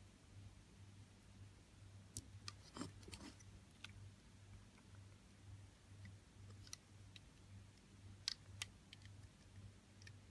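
Faint, scattered clicks and light ticks of a plastic loom hook catching and lifting silicone loom bands over the pegs of a plastic Rainbow Loom, a few in quick succession about two to three seconds in and a few more near the end, over a faint steady low hum.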